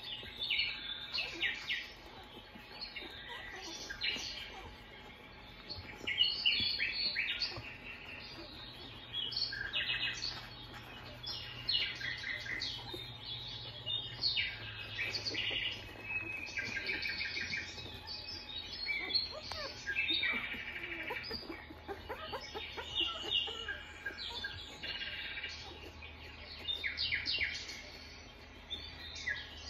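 Newborn Australian Shepherd puppies squeaking and squealing as they crawl over one another to nurse: many short high-pitched chirp-like cries, overlapping throughout.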